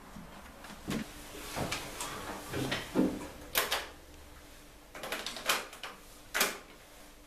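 Plastic clicks and clunks of a portable boombox's cassette door being opened and a cassette tape handled and pushed in, several separate knocks spaced a second or so apart.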